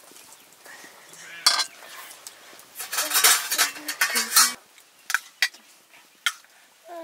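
Metal utensils clinking and scraping against metal dishes and pots: a single sharp clink, then a run of clattering from about three seconds in, and a few separate clinks near the end.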